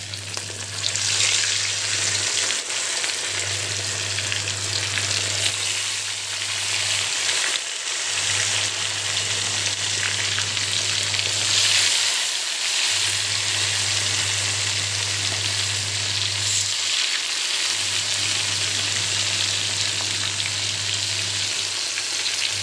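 Marinated fish steaks frying in hot oil in a large iron kadhai, sizzling and crackling steadily.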